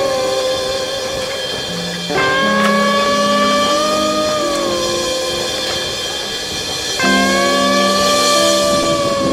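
Background music: long held lead notes that bend slowly in pitch, over a lower part moving in short steps. A new phrase comes in sharply about two seconds in and again about seven seconds in.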